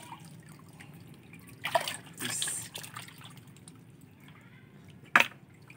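Water sloshing and dripping as hands grope underwater for shellfish and lift a shell out, with a louder splash about two seconds in and a short sharp knock or splash near the end.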